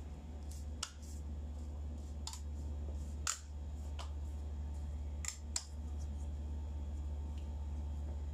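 Several short, sharp clicks and taps, six or so spread over about five seconds, over a steady low hum.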